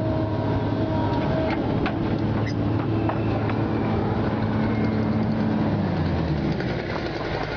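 Excavator's diesel engine and hydraulics running under load as the trencher fang is worked through the ditch. A high hydraulic-style whine stops about a second and a half in, a few sharp clicks and knocks come around two to three seconds in, and the engine note drops about six seconds in as the load eases.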